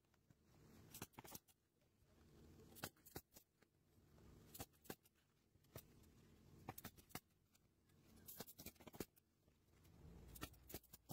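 Hitachi pneumatic coil roofing nailer firing into asphalt hip cap shingles: sharp shots mostly in close pairs, two nails per cap, every second or two, with soft rustling of shingles being handled between them.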